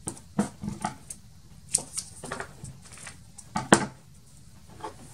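Hands pressing a glued paper panel down onto a card base on a cutting mat: a handful of irregular light taps and knocks of paper and fingers on the mat. The loudest comes a little under four seconds in.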